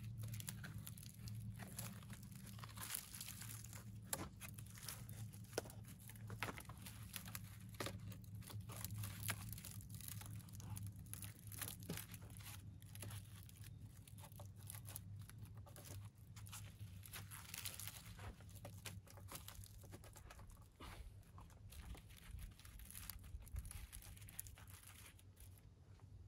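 Rope being pulled and wrapped around a log to lash it to a post, heard as faint, irregular rustling, scraping and crackling of rope, gloves and clothing. A steady low hum runs underneath.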